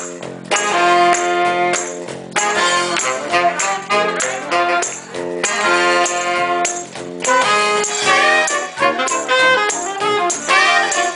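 Live saxophone band, three saxophones including a straight soprano, with electric bass and cajón playing a jazzy tune. The saxes hold chords over a steady beat at first, then a moving melody line takes over about two-thirds of the way in.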